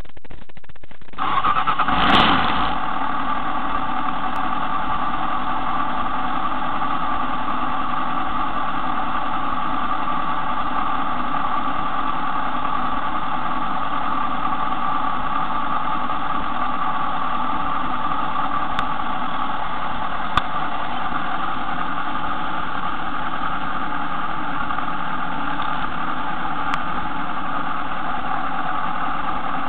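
Kawasaki sport motorcycle engine starting about a second in, with a short surge of revs as it catches, then idling steadily.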